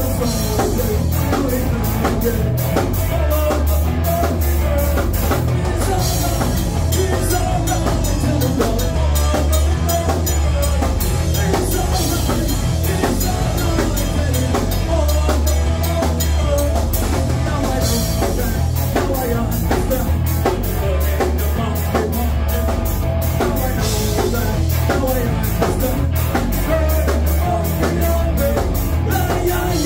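Live rock band playing in a small bar: electric guitars, bass and a drum kit driving a steady, fast beat, with cymbal crashes every few seconds.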